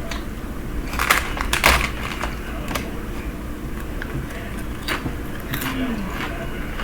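Eating and table noises: a quick cluster of sharp crackles and clicks about a second in, a few more scattered clicks later, and a short low "mm" from a voice near the end, over a steady low hum.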